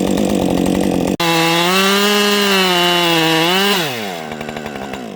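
Chainsaw cutting, breaking off abruptly about a second in, then running steadily at high revs before the revs fall away as the throttle is released and it winds down near the end.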